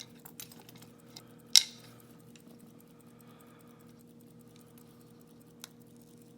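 Light metallic clicks and taps from handling a padlock and lockpicking tools, with one sharp clack about one and a half seconds in.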